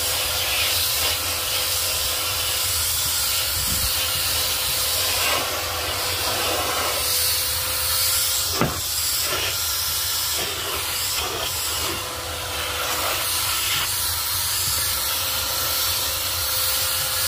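Filter Queen Majestic canister vacuum running steadily, its round dusting brush sucking fine tile-and-mortar dust off a wooden furniture top: a rush of air with a steady whine over it. One brief click about eight and a half seconds in.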